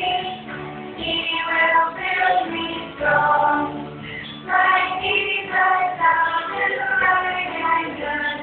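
A song playing: high voices, a child's or a woman's, singing over a backing track.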